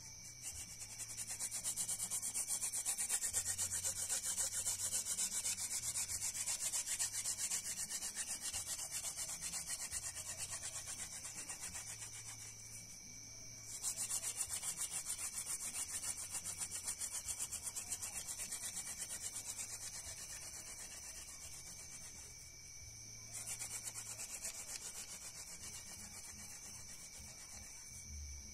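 Hand-drill fire-making: a wooden spindle twirled rapidly back and forth between the palms, its tip rubbing in a hearth board, a fast scratchy rubbing. It breaks off briefly twice, about 13 and 23 seconds in, as the hands go back to the top of the spindle.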